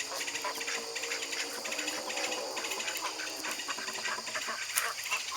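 A flock of backyard poultry calling: a busy mix of many short clucks and chirps over a steady high hiss.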